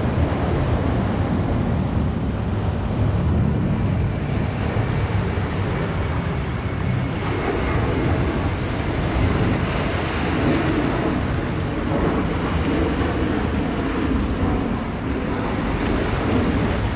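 Sea surf washing and breaking over rocks at the shoreline, a steady rush, with wind buffeting the microphone.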